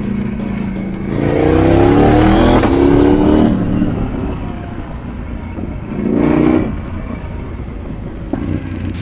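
KTM motorcycle engine accelerating with rising pitch: a long, loud pull about a second in and a shorter one around six seconds in, over a steady low rumble.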